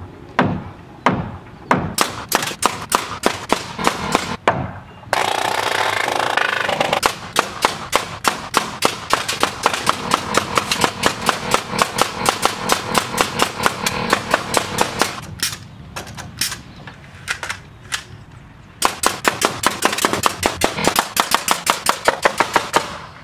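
Framing nail gun driving nails into the roof framing, firing in long rapid runs of about three shots a second, with a short quieter break a few seconds before the end. A steadier noise runs under the shots from about five seconds in.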